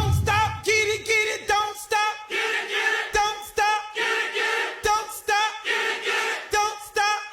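A high voice singing a quick run of short, repeated notes on nearly the same pitch, with no instruments behind it. A deep bass fades out within the first second.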